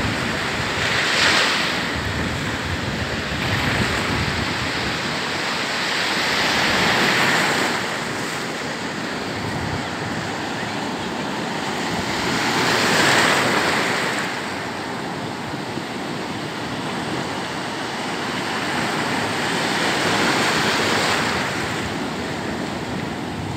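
Ocean surf breaking close by and washing over the shore as a continuous rush of foaming water. It swells louder every several seconds as each wave breaks.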